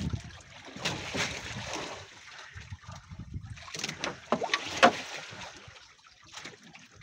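Water lapping around a small wooden outrigger fishing boat, with scattered light clicks and rustles from fishing line and tackle being handled. The sharpest click comes a little before the end.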